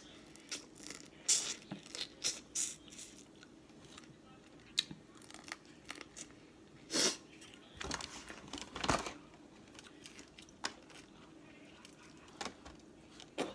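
Close-up eating sounds from a seafood boil: shells cracking and being peeled, chewing and crinkling, as irregular clicks and crackles with a couple of louder crunches in the second half.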